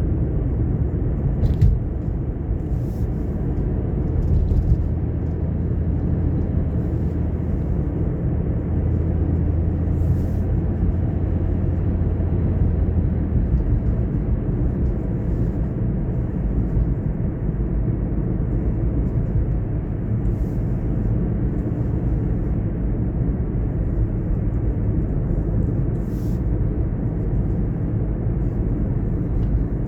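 A car driving along a road: a steady low rumble of tyres and engine, with a faint low hum that strengthens for several seconds partway through.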